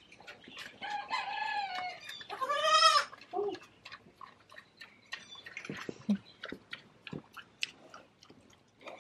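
Chickens calling: two drawn-out, arching squawks in the first three seconds, then scattered faint clicks and knocks.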